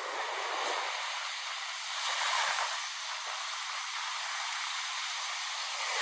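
Small sea waves breaking and washing up on a sandy shore: a steady hiss of surf with almost no low rumble, swelling briefly about two seconds in.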